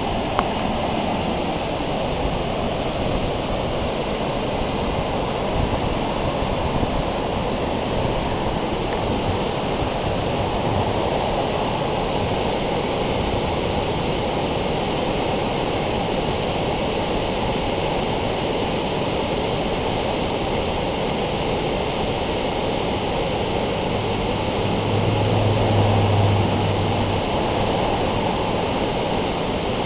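Heavy whitewater of a river pouring over a dam spillway and down rocky falls: a steady rushing of water. For a few seconds near the end a low hum comes up under it.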